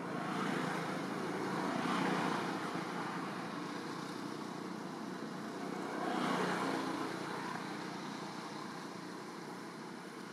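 Vehicles passing, a rushing noise that swells and fades twice, about two seconds in and again about six seconds in.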